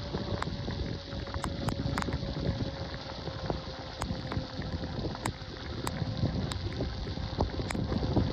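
Wind buffeting the microphone while riding an e-bike through a rainstorm, over a steady rushing noise, with scattered sharp ticks and a faint steady whine underneath.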